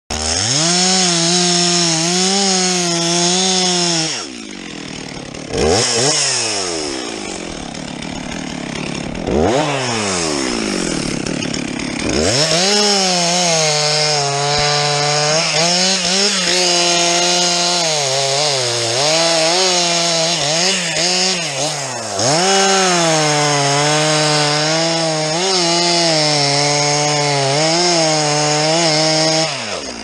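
Stihl MS 362 two-stroke chainsaw cutting into a spruce trunk at full throttle, its engine pitch wavering as the chain bites into the wood. About four seconds in it drops off the cut, twice revs up briefly and falls back. From about twelve seconds it is back in a long steady cut until just before the end.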